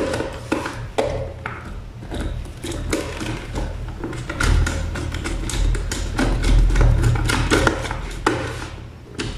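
Clicks and taps of hands fitting a wire into the screw terminals of a contactor's timer block on a wooden board, with a low rumble of handling in the middle.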